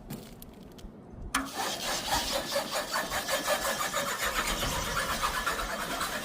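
A small engine starts about a second in after a few faint clicks, then keeps running with a fast, even pulse.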